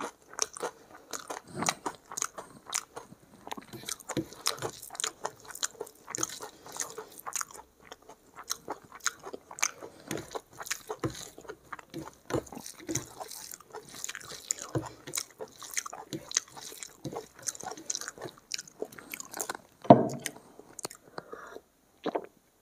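Close-miked chewing and mouth sounds of a person eating rice and egg curry by hand: a steady stream of irregular small smacks, squelches and crunches. One louder knock comes about twenty seconds in.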